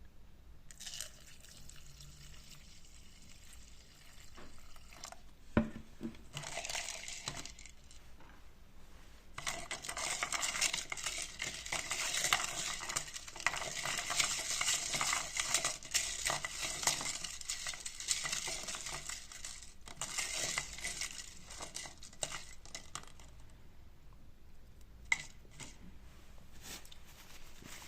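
Small metal parts clicking and rattling in a dense, irregular run, loudest in the middle, with a single sharp knock about five and a half seconds in and another near the end.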